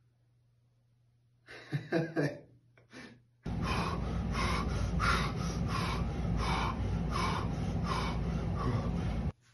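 A man breathing hard. A few sharp gasps come about one and a half seconds in, then from about three and a half seconds rapid, heavy breaths in and out, about two a second, over a steady low noise. It all cuts off abruptly near the end.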